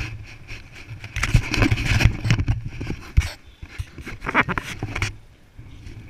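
Motorcycle riding along a street: a low steady engine hum under irregular, gusty buffeting noise on the microphone, with louder bursts of buffeting about a second in and again around four seconds.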